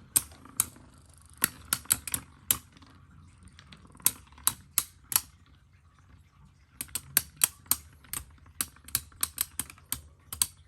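Metal Fight Beyblade tops clashing in a plastic stadium: sharp, irregular clacks, some in quick runs, with a short lull about halfway through.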